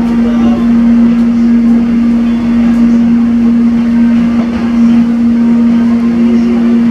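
Cabin noise inside an electric multiple-unit airport train while it runs: one loud, steady hum at a fixed pitch over a constant rumble of wheels and track.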